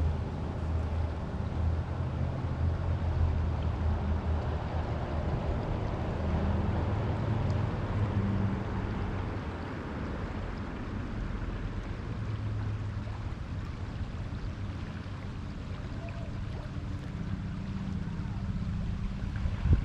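River water rushing steadily, with a low rumble underneath.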